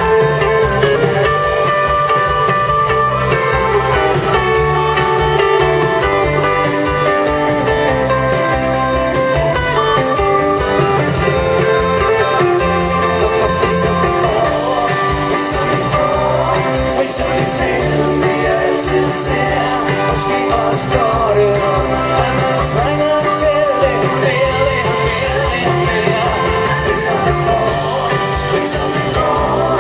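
Live band playing a guitar-led pop-rock song, with a singing voice over it.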